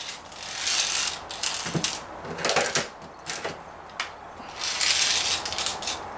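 Daisy 340 spring-piston BB pistol being handled and cocked between shots: several short bursts of mechanical clicking and rattling.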